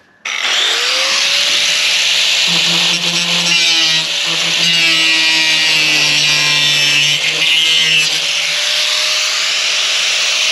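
Angle grinder cutting through corrugated metal roofing sheet. It starts abruptly just after the beginning and runs steadily, the disc grinding into the metal.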